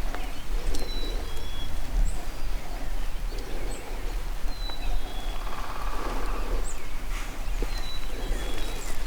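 Outdoor field ambience: a steady low rumble and hiss with a small songbird calling three times, each a short high two-note whistle, a few seconds apart.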